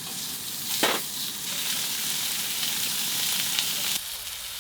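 Food sizzling as it fries on the heat, a steady crackling hiss with one brief louder burst about a second in.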